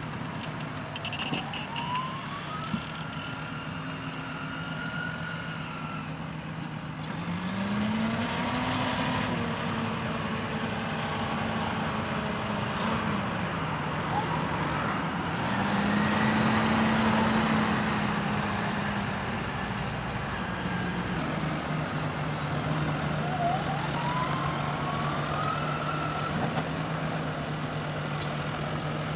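John Deere 6175R tractor's six-cylinder diesel engine running steadily under ploughing load. It picks up revs twice for a few seconds and then settles back. Twice a higher whine rises slowly over a few seconds.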